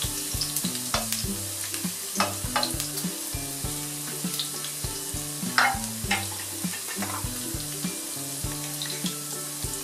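Chopped garlic sizzling steadily in hot olive oil in a frying pan, stirred now and then with a spatula.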